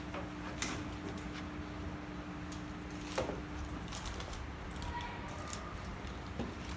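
Room noise: a steady low hum with a few scattered light clicks and knocks.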